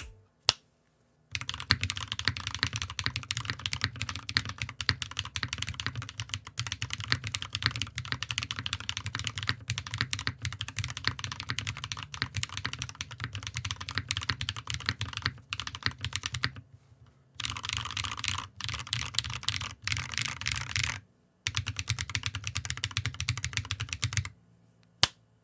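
Fast typing on a Cruelworld CW60 60% mechanical keyboard fitted with KTechs S2v2 Snow long-pull tactile switches: a rapid, continuous stream of keystrokes, broken by two short pauses in the later part.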